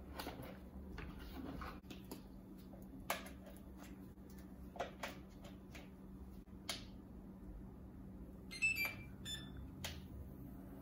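Light clicks and knocks of battery packs and connectors being handled, then a Traxxas EZ-Peak Live Dual charger giving a quick run of electronic beeps near the end as a LiPo battery is plugged in.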